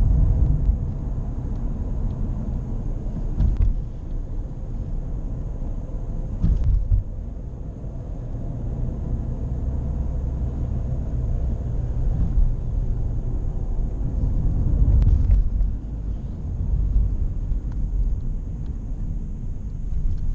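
Low, steady drone and road rumble inside the cabin of a Nissan Qashqai J11 coasting in neutral, with a few brief knocks; the owner takes the drone for a worn wheel bearing.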